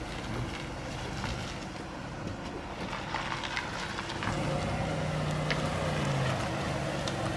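A car engine running at idle, a steady low hum that grows a little louder about four seconds in.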